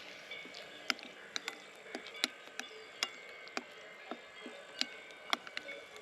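Wood fire crackling, with sharp, irregular pops coming two or three times a second.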